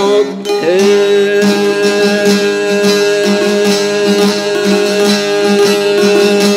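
Albanian folk song: a long-necked plucked lute strummed in a fast, steady rhythm while a male singer, about half a second in, slides up into one long held note.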